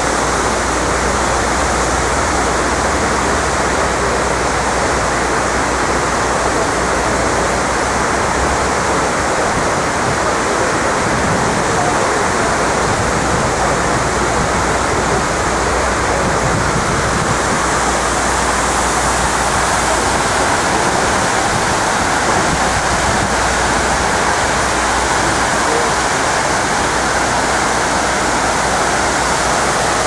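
Steady rush of water pouring down the granite walls of a 9/11 Memorial reflecting pool, a constant even roar of falling water.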